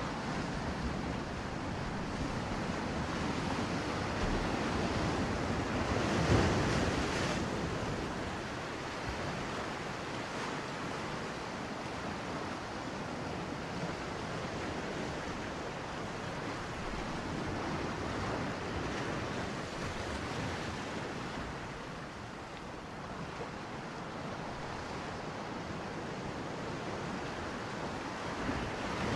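Shallow seawater and surf heard from a camera held underwater, a steady rushing noise that swells briefly about six seconds in.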